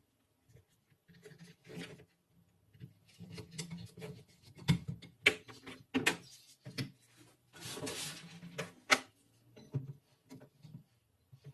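Rifle parts of metal and wood being handled in a workshop: scattered clicks and knocks, a few sharper ones in the middle, and a brief scrape about eight seconds in.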